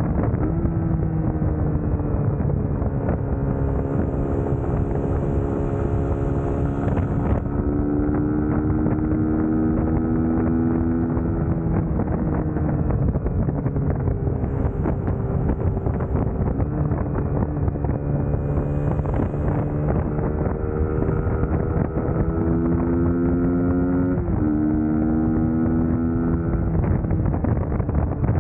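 Suzuki GSX-S150's single-cylinder engine running while riding, its pitch rising and falling with throttle and gear changes, including a sharp drop about 24 seconds in. Wind rushes over the microphone throughout.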